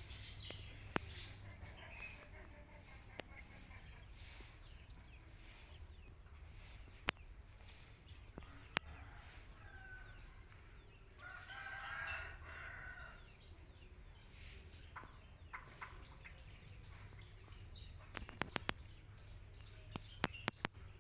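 A rooster crowing once, faintly, for about two seconds a little past the middle, over a steady high-pitched tone. Scattered sharp clicks are heard, bunching into a quick run near the end.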